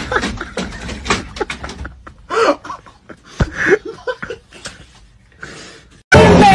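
Stifled laughter in short fits, with scattered clicks and knocks. About six seconds in it cuts to loud music and talking.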